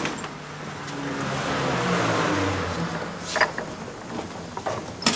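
A motor vehicle engine running, swelling to a peak about two seconds in and then easing off, with two short sharp knocks, one after about three and a half seconds and one near the end.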